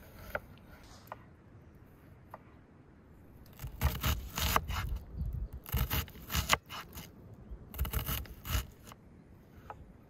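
Three bouts of rough scraping, each about a second long and made of quick strokes, starting a few seconds in.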